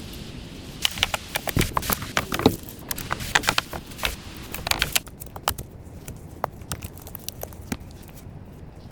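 Rapid, irregular clicks and knocks, thickest in the first half and sparser after about five seconds.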